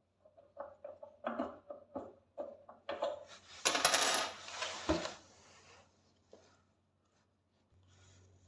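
Small metal parts clinking and rattling while a microwave turntable motor is being fitted: a run of quick clicks, then a louder rattling scrape about midway that ends in a sharp knock.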